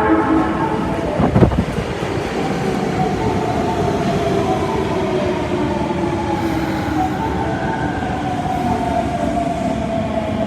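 Osaka Metro 22 series subway train running: a single thud about a second and a half in, then a steady rumble with a whine that slowly falls in pitch.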